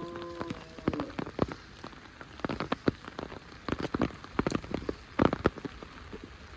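Rain falling in heavy, scattered drops that tap irregularly and sharply on a nearby surface over a faint steady hiss. A short pitched tone sounds right at the start.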